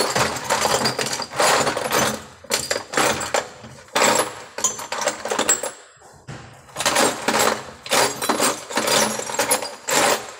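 Metal parts and tools clinking and rattling in repeated short bursts about a second apart, with brief pauses, as a dough mixer's shaft and worn bushing assembly are taken apart by hand.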